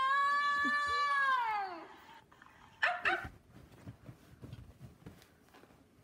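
A dog's long, high howl that holds steady, then falls away and ends a little under two seconds in. About three seconds in come two short high yelps, followed by faint soft scuffling.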